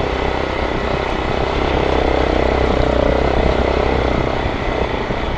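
Hero XPulse 200 motorcycle's single-cylinder engine running steadily under way on a gravel track, with a mix of road and wind noise.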